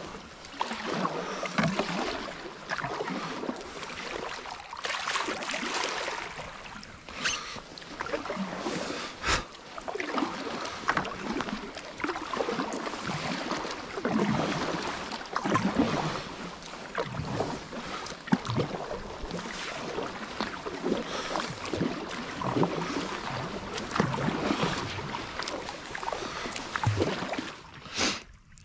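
Kayak paddle strokes in the river, each blade dip splashing and dripping, coming every second or two. One sharp knock sounds about nine seconds in.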